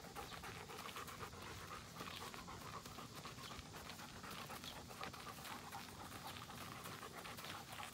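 German shepherd panting steadily.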